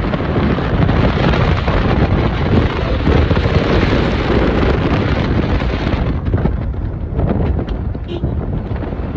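Wind rushing over the microphone and road noise from a car driving along: a loud, steady rush that thins out in its upper range about six seconds in.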